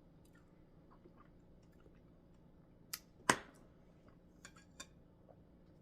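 Quiet table and eating sounds: scattered small clicks and taps of food and utensils being handled, with two sharper knocks close together about three seconds in.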